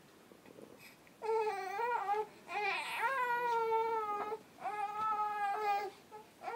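Three-month-old baby crying in three long wails, starting about a second in.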